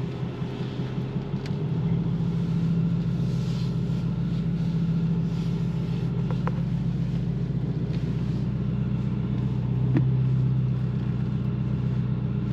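Pickup truck engine running under load as the truck drives slowly over rough, muddy ground. The engine note rises about two seconds in, with a few light knocks from the truck.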